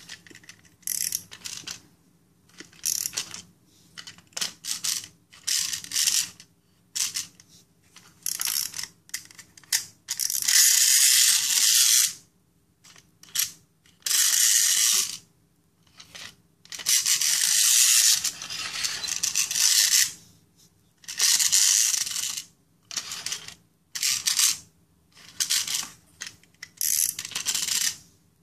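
Clockwork spring mechanism of a plastic wind-up toy car: many short bursts of ratcheting clicks as it is wound and turned by hand, broken by a few longer stretches of a second or two.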